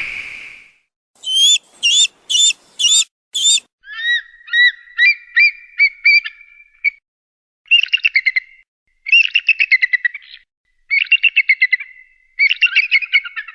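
Eagle calls: a run of five rapid, high, downslurred cries, then a series of about seven short whistled notes, then several bursts of fast, high-pitched chittering.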